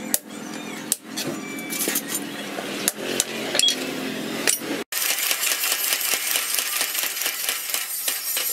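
Irregular hammer blows and metallic clinks on glowing steel being forged into an axe head on a stake anvil. About five seconds in the sound cuts out and background music takes over.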